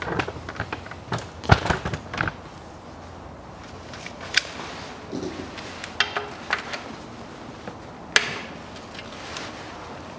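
Scattered sharp clicks and knocks of hand tools being handled at a car's oil-pan drain plug as it is readied for draining. The loudest knock comes about a second and a half in.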